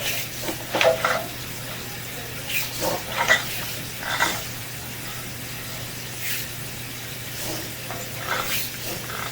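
Water running from a bathroom sink into the drain line, a steady hiss with scattered crackles, over a low steady hum.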